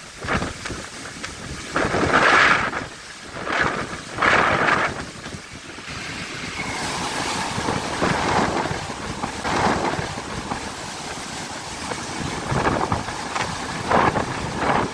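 Strong wind buffeting the microphone over the noise of big waves, swelling and dropping in gusts every few seconds.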